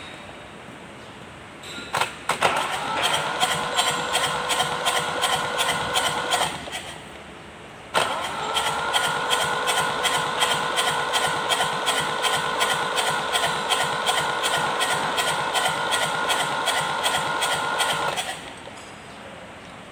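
Kubota Z851 two-cylinder diesel turned over on its electric starter in two bursts, about four seconds and then about ten seconds, with the starter's steady whine and a fast, even beat of compression strokes. Each time it stops without running on, as the injection system is being bled of air to get the freshly rebuilt engine to start.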